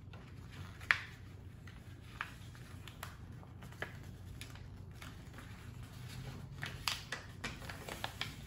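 Paper being folded and creased by hand on a tabletop: faint scattered rustles and light ticks, a few more toward the end, over a low steady hum.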